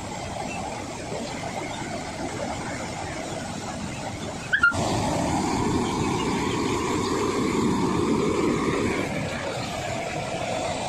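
Floodwater of a swollen river rushing and churning past bridge piers: a steady rushing noise. About halfway through there is an abrupt break with a short click, after which the rushing is louder and deeper.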